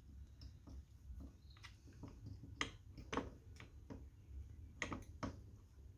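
Light, irregular clicks and taps as a guide bar is handled and fitted onto a small Stihl chainsaw, about half a dozen sharp clicks in all.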